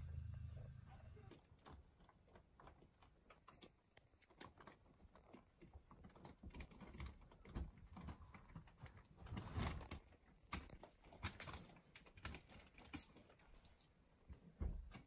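Faint scattered clicks and taps of a cat clambering into and shifting about inside a hard plastic pig-shaped treat bin, a little louder in the middle, with a soft thump near the end as it drops out onto the floor.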